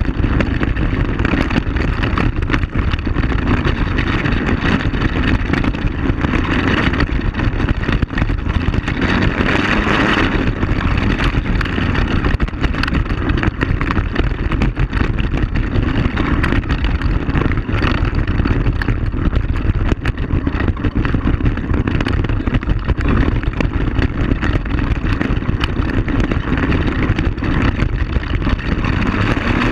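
ATV engine running steadily while the quad rides a rough gravel trail, with frequent short knocks and rattles from the bumps.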